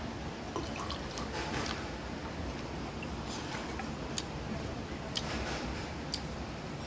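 Eating sounds at a table: a few short, sharp clicks and soft wet smacks from chewing and from utensils or fingers on the plate, over a steady low background hum.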